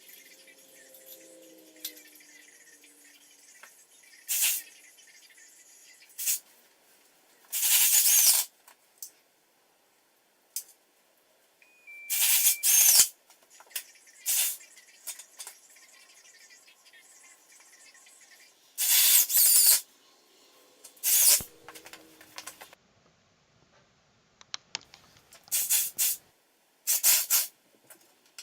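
Aerosol spray-paint can sprayed in short hissing bursts, about ten of them, each lasting up to a second or so, with pauses between.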